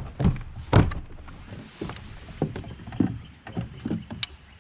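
Irregular knocks and thumps on the plastic hull of a Hobie PA 14 fishing kayak as gear is handled aboard, the loudest about a second in.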